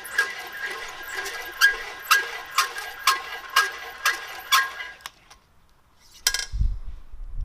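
Valve seat cutter working a 45-degree seat in a Cummins 12-valve cylinder head: sharp, ringing metallic clicks about twice a second, which stop a little over halfway through. Near the end there is a short rush of noise and a low rumble.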